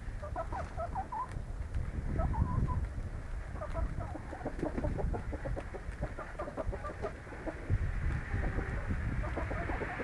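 A flock of golden bantam Italian chickens clucking, with many short calls scattered throughout over a low rumble.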